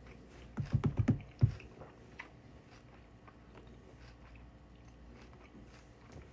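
A person chewing close to the microphone, with a quick run of about six low, sharp thumps around one second in, then only faint mouth clicks.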